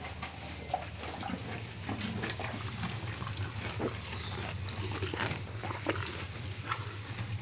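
Cows munching straw and green fodder close to the microphone: many short, irregular crunching and snuffling sounds over a steady low hum.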